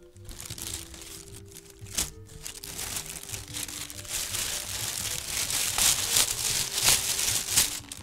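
Thin plastic carrier bag rustling and crinkling while takeout containers are taken out of it, with a few sharper crackles in the second half.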